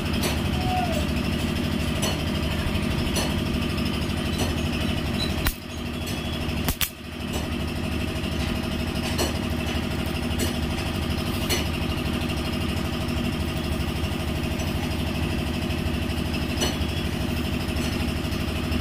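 An engine running steadily with faint, evenly spaced ticks, briefly cutting out twice about five and a half and seven seconds in.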